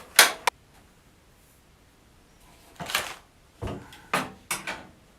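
Handling noise from cables and parts being worked inside a computer case: a sharp knock and a click at the start, then a cluster of short knocks and rustles from about three seconds in, one of them a dull thump.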